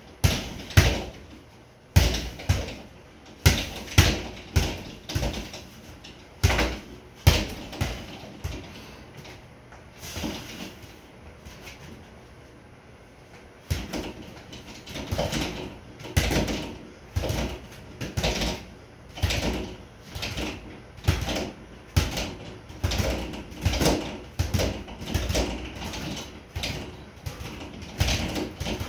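Boxing gloves smacking a double-end bag in quick, irregular flurries of punches, with a lull of a few seconds in the middle.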